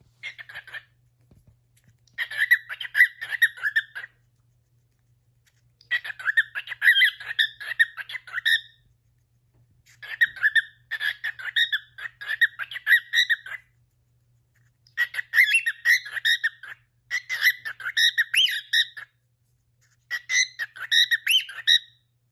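Cockatiel chattering in six bursts of quick, short chirping notes, each burst one to three seconds long with pauses between.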